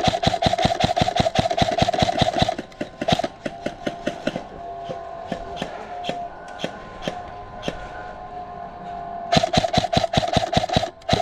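Krytac Trident MKII CRB-M airsoft electric gun firing on full auto: a long rapid burst with the motor and gearbox whining under it, scattered single shots, then another long burst near the end.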